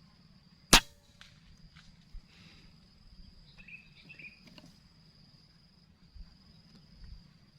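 A single shot from a PCP air rifle about a second in: one sharp crack, over insects chirping steadily on one high note and a low rumble of wind.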